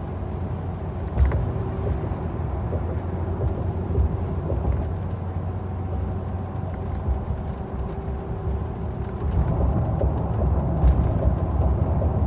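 Road noise inside a car's cabin at 50 mph with the windows up, from Toyo Open Country A/T2 35-inch all-terrain tyres on 20-inch wheels: a steady low rumble with a faint steady tyre hum above it. There is a single thump about a second in, and the noise grows louder about nine seconds in.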